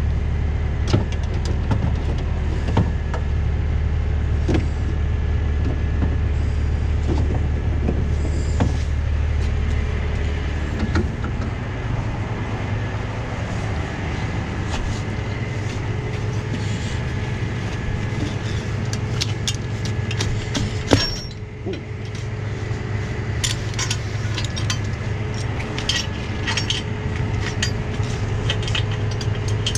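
Tow truck's engine running steadily, its pitch stepping up a little about ten seconds in. Scattered light metallic clinks of tow gear are heard over it, with one sharp clank just after twenty seconds.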